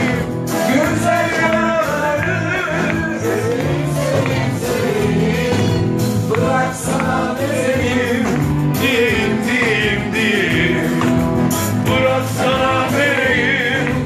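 Live band playing a Turkish pop song, with singing over it.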